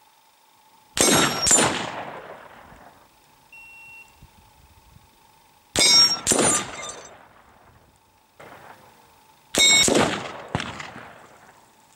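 Three rifle shots at steel gong targets, about four seconds apart. Each shot is followed about half a second later by the metallic clang of the hit, which rings on and fades. A short electronic beep sounds between the first two shots.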